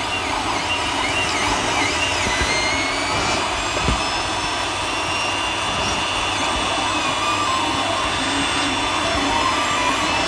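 3D printer running: a steady fan whir with the stepper motors' faint whine gliding up and down in pitch as the print head moves.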